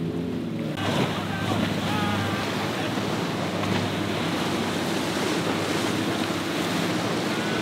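Background music cuts off about a second in, giving way to wind on the microphone and breaking waves, with the steady drone of a center-console boat's outboard engines running through the chop.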